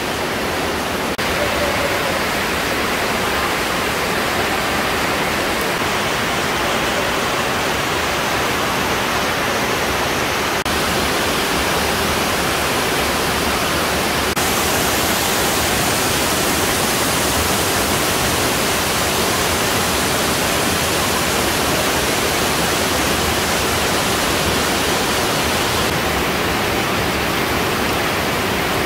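Steady rushing noise of water flowing through a limestone cave, shifting abruptly in tone a few times.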